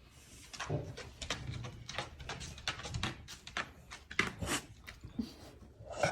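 A dog moving about in a small room: irregular clicks, knocks and scuffling.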